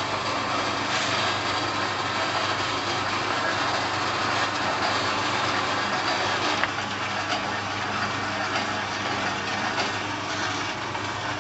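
Electric dough-sheeting machine running steadily: a motor hum under a continuous mechanical whirr. A click comes about two-thirds of the way in, after which it runs slightly quieter.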